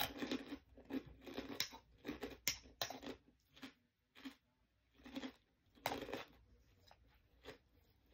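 Close-up chewing and crunching of food in the mouth: a string of irregular bites and chews, a few every second, with a short lull about four seconds in.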